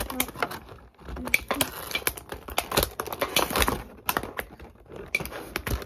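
Clear plastic packaging crinkling and clicking as it is handled: a stiff plastic tray, then a small plastic bag, giving a dense run of sharp crackles and clicks.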